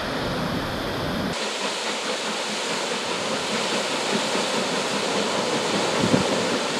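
Water gushing through the upper gates of a canal lock into the chamber below, a steady rushing. About a second and a half in the sound changes, losing most of its low rumble.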